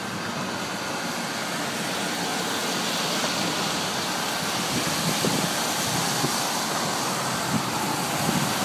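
Motorcade cars and a limousine driving past on a wet street: a steady hiss of tyres on wet pavement with engine noise, growing gradually louder.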